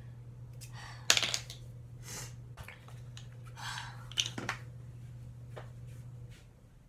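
Close handling noises: clicks, knocks and short rustles as small things are picked up and moved while rummaging for toothpaste, the loudest a sharp knock about a second in. A low steady hum runs underneath and stops near the end.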